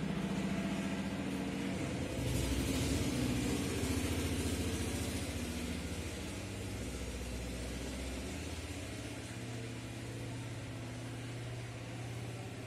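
An engine running steadily with a low hum, its pitch shifting slightly a couple of times.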